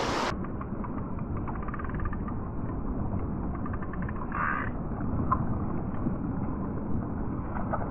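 Steady low rumble of seaside wind and water on the microphone, with a few faint ticks scattered through it.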